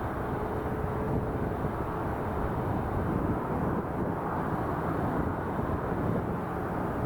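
Airliner jet engine noise, a steady low rumble with a faint hum in the first second.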